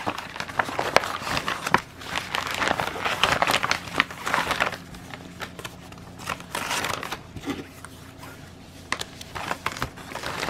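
Clear plastic packaging bag and paper sheets crinkling and rustling as a cross-stitch kit's pattern sheet and thread card are slid back inside. The handling noise is dense for the first half, then comes in sparser bursts of crinkles.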